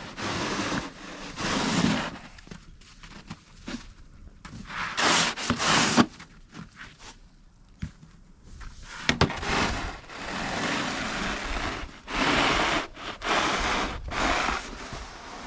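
Heavy, wet snow crunching in irregular strokes under someone's boots or tools, with a quieter stretch in the middle.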